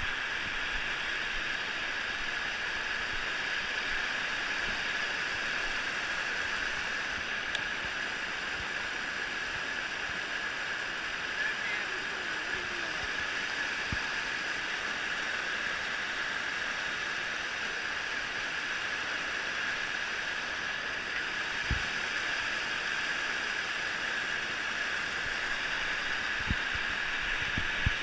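River water rushing steadily over shallow rock ledges in small cascades, close by. A few short dull knocks come in the last third.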